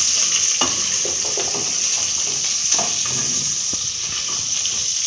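Beef pieces sizzling in hot oil in an aluminium pot, stirred with a wooden spoon, with a few short knocks of the spoon against the pot.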